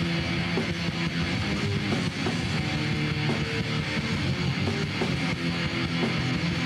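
Rock band music with no vocals: guitar strummed over bass guitar, playing steadily.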